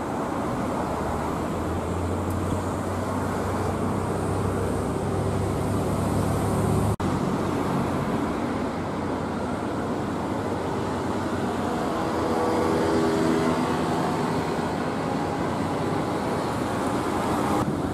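Road traffic: cars passing on a road, with a low engine hum over the first several seconds that cuts off suddenly about seven seconds in.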